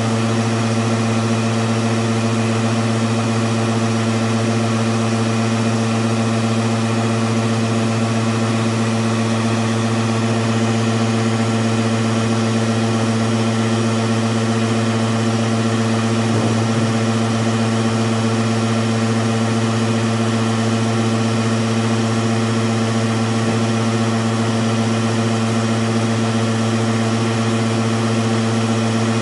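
Hematocrit centrifuge motor spinning the rotor at a steady speed during a test run, separating blood in capillary tubes. A constant hum that holds one pitch throughout, the motor speed set by a homemade thyristor–DIAC regulator.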